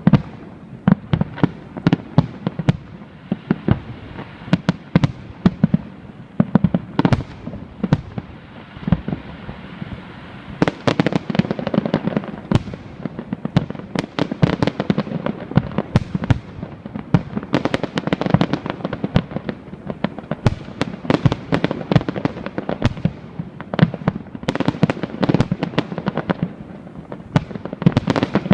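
Aerial fireworks exploding in a rapid, continuous barrage of bangs and cracks, many a second, growing denser about ten seconds in.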